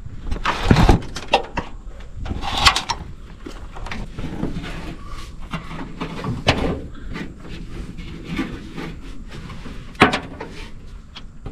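Irregular clicks, knocks and rattles of hands and a screwdriver working on wiring and hoses in an old truck's engine bay, with one sharper knock near the end.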